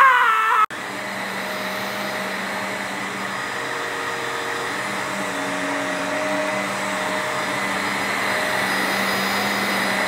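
A man's brief shout, then an upright vacuum cleaner running steadily, its motor giving an even whooshing hum with a faint whine.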